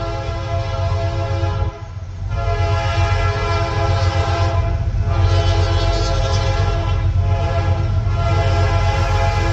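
Diesel locomotive horn sounding a steady chord in long blasts, breaking off briefly about two seconds in and again near five seconds, over the deep rumble of the locomotive's diesel engine.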